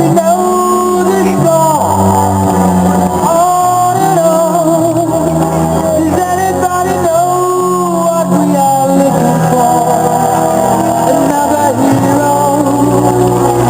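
A song with a singing voice over backing instruments, playing continuously.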